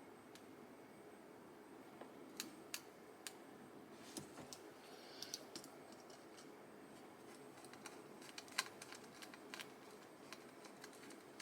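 Faint, irregular small clicks and taps, a dozen or so over several seconds, from keyboard stabilizers being handled and fitted onto the PCB.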